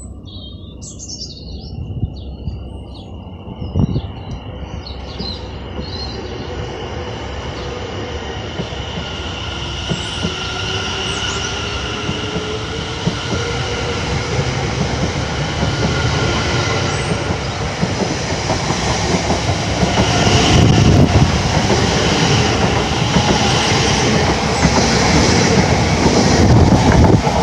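Class 720 Aventra electric multiple unit pulling away from the platform and gathering speed. Its traction motors give a whine that rises in pitch, and the whole sound grows steadily louder. Near the end come wheel noise and clicks over the rail joints.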